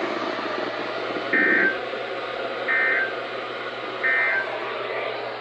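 Three short EAS end-of-message data bursts, the warbling 'NNNN' tones, about a second and a half apart, over the hiss of a NOAA Weather Radio signal. They mark the end of the broadcast's test message.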